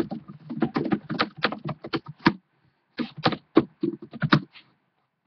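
Typing on a computer keyboard close to the microphone: quick, irregular key clicks in two runs with a short pause near the middle, then they stop shortly before the end.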